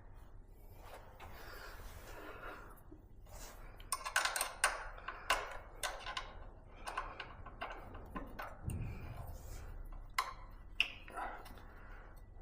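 Irregular metallic clicks and clinks of tools on an e-bike's rear disc brake as it is tightened, coming thick and fast from about four seconds in, after a softer rustle of handling.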